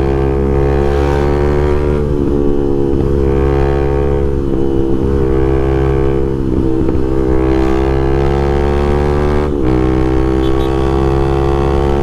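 Honda Twister single-cylinder motorcycle engine running steadily at cruising speed with its intake hose removed, heard from the rider's seat. The engine note holds an even pitch, with a short dip about nine and a half seconds in.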